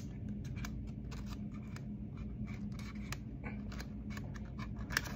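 Plastic card sleeve being handled as a trading card is slid into it: small, irregular crinkles and clicks, with a sharper click at the start and another near the end.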